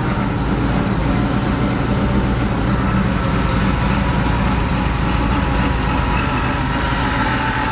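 Supercharged V8 engine running steadily at an even speed, with a steady high whine over its low rumble.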